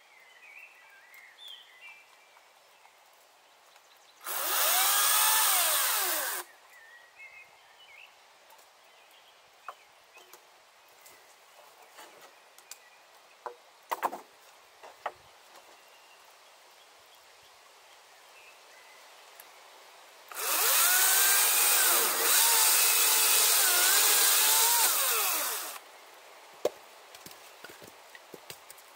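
Battery chainsaw cutting through birch logs twice: a short cut about four seconds in and a longer one of about five seconds later on, the motor's pitch dipping and recovering as the chain bites into the wood. A few light knocks between the cuts.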